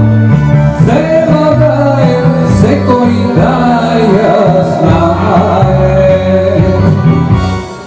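A man singing into a microphone over instrumental backing music. The song fades out near the end.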